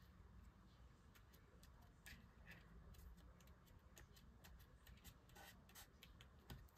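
Near silence with faint, irregular light clicks and ticks from small hand work with die-cut paper pieces and tools on a craft table.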